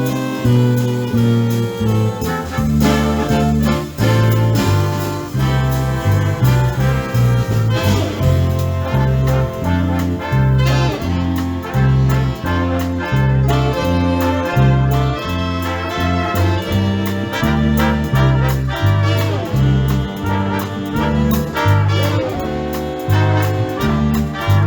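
A live swing big band playing: saxophones and brass over a walking bass line with drums, in steady dance tempo.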